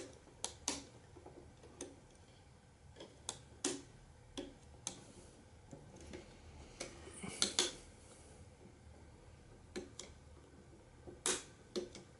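Hard plastic parts of a Takara Tomy Masterpiece Beast Wars Megatron figure clicking and knocking as they are handled and pushed together while a tab is forced into place. The clicks are sharp and irregular, with a quick group about seven and a half seconds in and a sharp one near the end.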